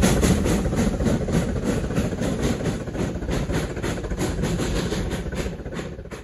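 Steam rotary snowplow train working past: rapid, even steam exhaust beats, about four a second, over a heavy rumble, growing fainter as it moves away.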